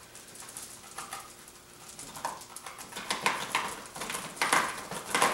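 Cast lead bullets being poured by hand into a plastic tub of powder-coated BBs, clattering and rattling in quick clusters that grow denser and louder from about two seconds in.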